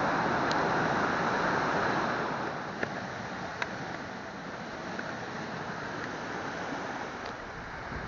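Steady rushing of water in a rocky stream, louder for the first two seconds or so and then a little softer. Two sharp clicks come about three and three and a half seconds in.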